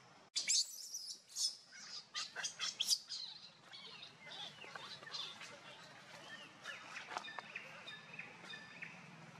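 Birds chirping: a quick run of bright, high chirps in the first few seconds, then fainter, scattered calls.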